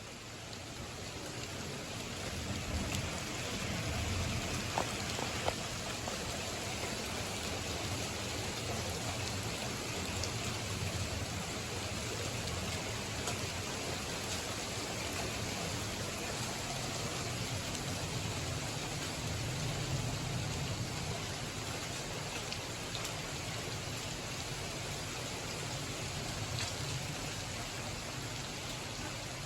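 Heavy thunderstorm rain falling steadily, a continuous even hiss with a low rumble underneath. A couple of brief sharp ticks stand out about five seconds in.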